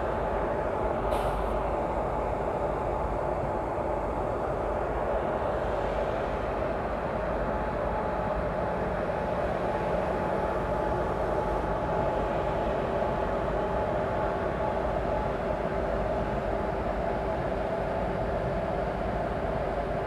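Twin WAG7 electric locomotives idling with a steady whirring hum, a few constant tones held over the noise. There is one short click about a second in.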